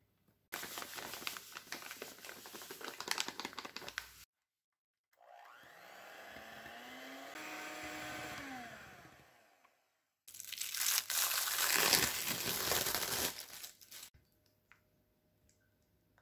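Electric hand mixer whipping cream in a glass bowl. There are two stretches of crackling, scraping noise as thick cream is worked. Between them the mixer's motor hum rises in pitch and then falls away.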